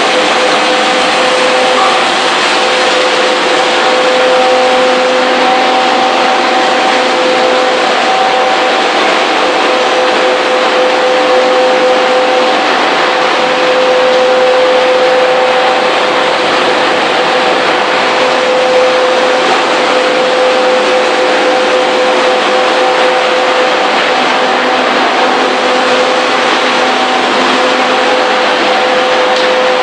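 Corn stick production machinery running steadily: a loud, even machine noise with two steady whining tones held throughout.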